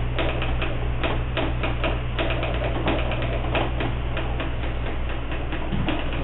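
DJ scratching a record on a turntable and working the mixer: fast, irregular clicks over a steady electrical hum.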